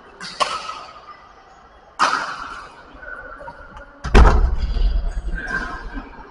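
Badminton rackets striking a shuttlecock: sharp cracks about two seconds apart, echoing in a large hall. The loudest comes about four seconds in and is followed by a low rumble.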